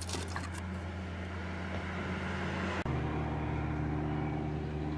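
A steady low mechanical hum with a few handling clicks near the start; about three seconds in the hum shifts to a different, somewhat higher set of tones.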